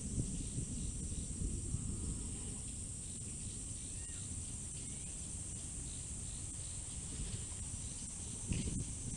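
Steady high-pitched chorus of insects, over a low gusty rumble that swells briefly near the end, with a few faint chirps.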